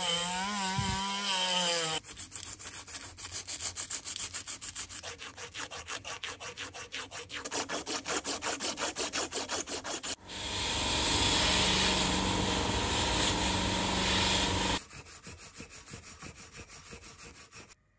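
A cordless rotary tool with a brass wire brush whirs against the metal spout tube of an oil pump, its pitch wavering, for about two seconds. Then 500-grit sandpaper rubs back and forth on the tube in quick strokes, about five a second. About ten seconds in comes a steady, louder abrasive noise lasting several seconds, and near the end a green abrasive pad rubs the tube in quick strokes.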